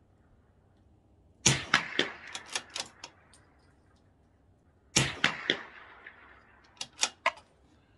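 Two shots from a CZ 457 bolt-action .22 LR rifle, about three and a half seconds apart. Each shot is followed by a quick string of sharper clicks.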